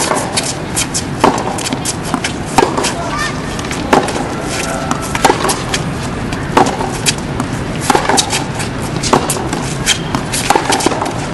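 Tennis ball hit back and forth by racquets in a baseline rally on a hard court, a sharp strike about every 1.3 seconds, with fainter ball bounces in between.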